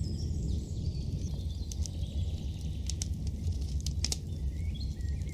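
Outdoor nature soundscape: a steady low background noise with scattered light ticks and patter, and a few faint bird chirps.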